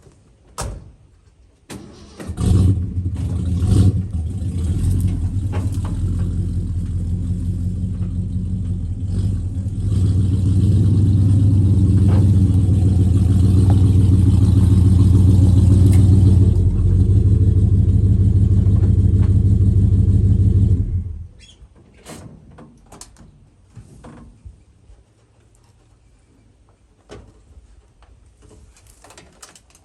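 A vehicle engine starting with a surge, then running steadily and more loudly from about halfway, before cutting off suddenly. A few light knocks follow.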